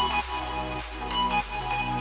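Background music: an electronic track with a steady bass and short held synth notes changing about twice a second.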